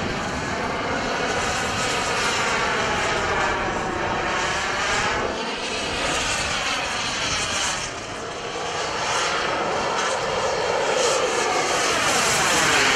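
Turbine engines of radio-controlled model jets in flight overhead, a continuous jet whine and rush whose tone seems to sweep as the aircraft move. The sound swells near the end as one jet comes close and climbs.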